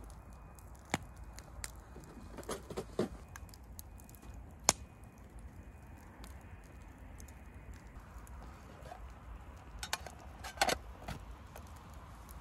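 Campfire crackling with scattered sharp pops, along with light metal clinks of cookware as the skillet and the aluminium mess tin are handled.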